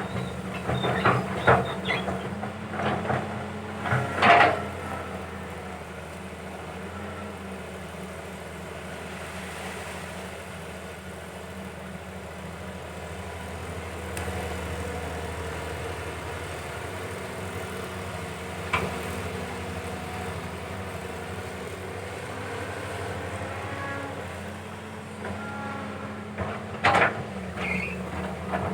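Caterpillar 320 hydraulic excavator's diesel engine running steadily while it digs, with a cluster of metallic clanks and knocks in the first few seconds, a single click around the middle, and more clanks near the end.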